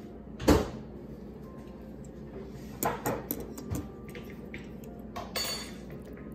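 Metal fork knocking and clinking against a bowl of pho as noodles are stirred and lifted out. A sharp knock about half a second in is the loudest, with softer clinks around three seconds in and again near the end.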